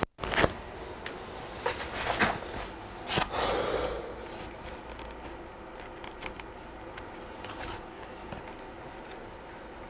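Handling noise from a Dell XPS 13 9350 display assembly as it is lifted and turned over on a workbench mat: a few knocks and clicks, then a short scraping slide about three seconds in, followed by faint ticks.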